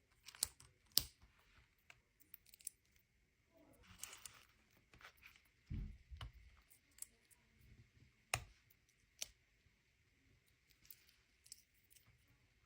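Packaging and a plastic toy being handled: scattered sharp clicks and taps, a stretch of rustling and crinkling about four seconds in, and a soft thud just before the midpoint.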